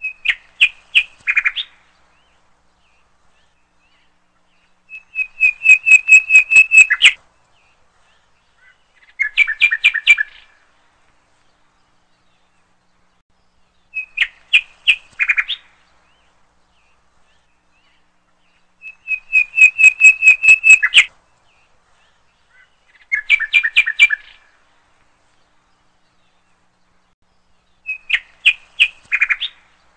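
Looped bird-chirp soundtrack: short phrases of rapid, high chirps every four to five seconds with silence between, the same sequence of three phrases repeating about every fourteen seconds.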